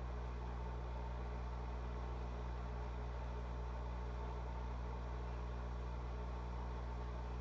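An aquarium pump humming steadily: a low, even electric hum with a faint higher tone above it and a light hiss.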